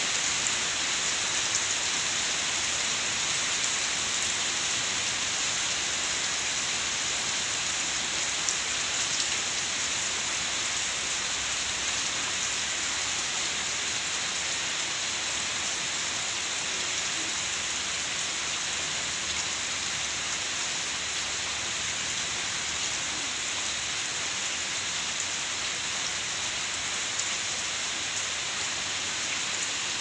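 Steady rain falling: an even, unbroken hiss of many drops.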